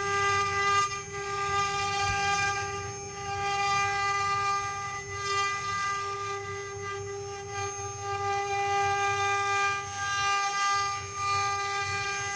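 Multi-spindle CNC wood-carving machine running: its router spindles give a steady high whine at one unchanging pitch, over a rougher rumble that rises and falls as the bits cut.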